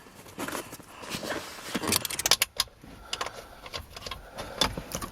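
Scattered sharp clicks and light knocks from hand work, with a quick run of clicks about two seconds in and another sharp click near the end.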